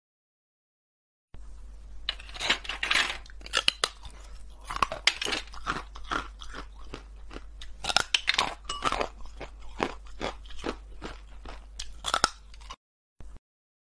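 Hard blue ice bars being bitten and chewed: a dense, irregular run of sharp crunches that starts about a second in and cuts off shortly before the end.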